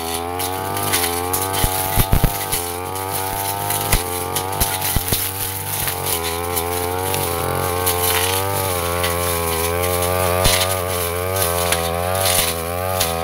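Backpack brush cutter's engine running at high revs, its pitch rising and falling continuously as the blade swings through brush and woody saplings. Sharp ticks and knocks come through as the blade strikes stems.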